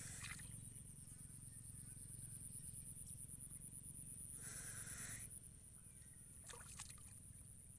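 Water buffalo wallowing in a muddy water-filled ditch: faint sloshing and trickling of water as it shifts, with a louder noisy rush about four and a half seconds in and two short clicks near the end, over a steady high-pitched whine.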